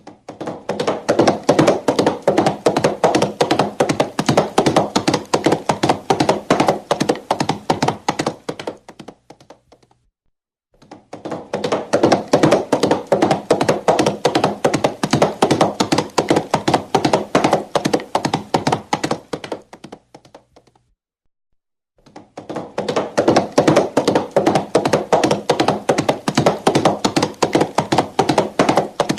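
Foley hoofbeats of a galloping horse: rapid, dense knocking that fades in, runs steadily and fades out, three times over with short silences between.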